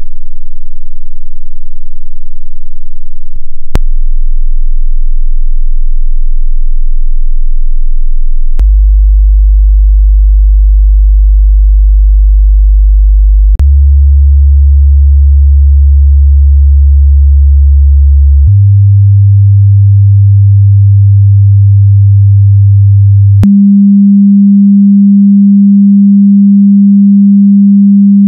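Hearing-test sine tones: six steady pure tones, each held about five seconds, stepping up in pitch from a very low hum below 50 Hz to about 200 Hz. Each tone switches to the next with a small click.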